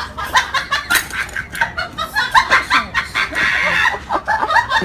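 Clucking like hens: a fast, busy run of many short clucks and squawks in quick succession.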